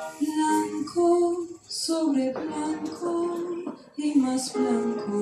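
A woman singing a slow song in Spanish, accompanied by a small wind ensemble of trombone, saxophone, clarinets and flute, with short breaks between sung phrases.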